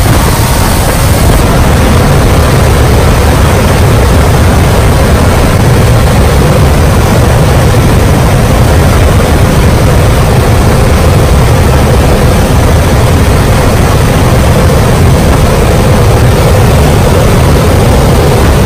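Aircraft engine noise and rushing wind in the cabin of a jump plane flying with its side door open. The sound is loud and steady throughout.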